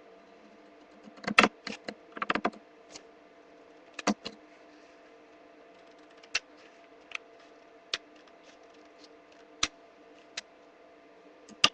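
Scattered light clicks and taps from paper being cut with scissors and handled, a few quick clusters in the first few seconds and then single clicks about once a second, over a faint steady hum.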